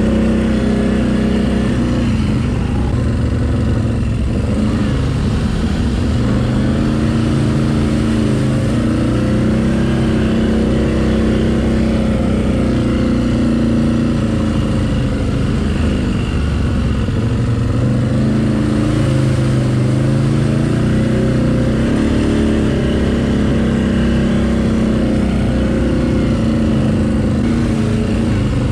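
ATV engine running continuously as the quad is ridden, its pitch rising and falling repeatedly with the throttle.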